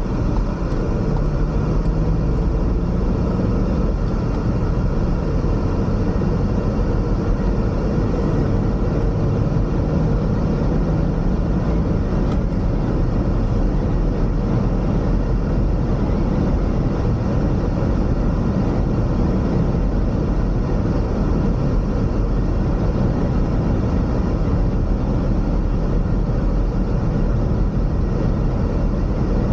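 Car driving along a road: a steady low rumble of tyre and engine noise, with an engine tone that shifts in pitch during the first few seconds.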